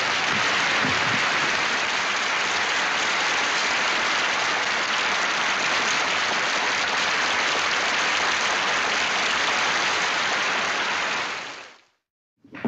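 Large banquet audience applauding steadily, fading out near the end.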